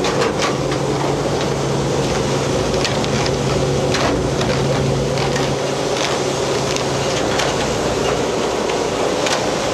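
Purse seiner's deck winch running, spooling steel wire rope onto its drums, with a steady machinery hum and scattered clicks and knocks. The low hum drops away about seven seconds in.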